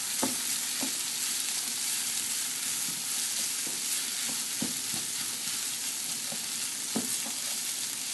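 Onions, wood ear mushrooms and jicama sizzling in hot oil as they are stir-fried, with a few short knocks of the spatula against the pan.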